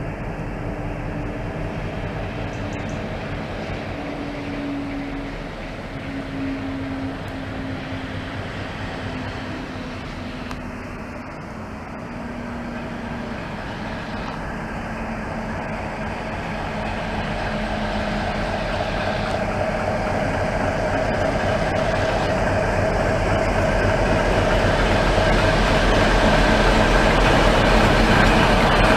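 Class 60 diesel-electric locomotive, with its eight-cylinder Mirrlees diesel engine, hauling a train of tank wagons past at low speed. The engine drone grows steadily louder through the second half as it draws alongside, and a higher whine rises over the last few seconds.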